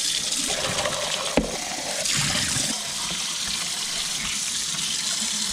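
Tap water running into a stainless steel sink and splashing over a paintbrush and a plastic paint palette being rinsed under it, with a single sharp knock about a second and a half in.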